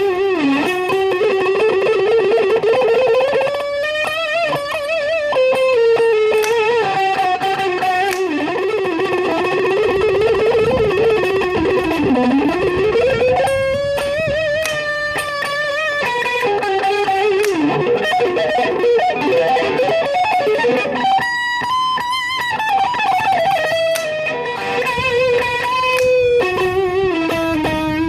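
Fender YJM Stratocaster played through a DOD YJM 308 preamp and a Marshall DSL40C valve amp: an overdriven lead line of long, sustained notes with wide vibrato and string bends.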